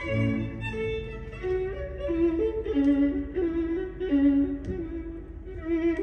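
Recorded classical music with a bowed string melody, violin over lower strings, played back through a valve-amplified high-end stereo system. The melody moves in held notes that change about every half second.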